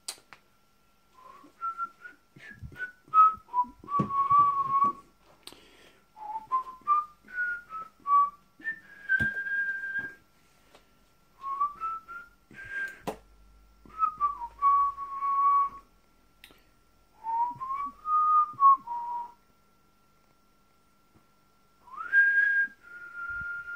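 A person whistling a tune in short melodic phrases with pauses between them, ending on a held note. Scattered sharp clicks and knocks from handling equipment fall between the phrases, the loudest one about halfway through.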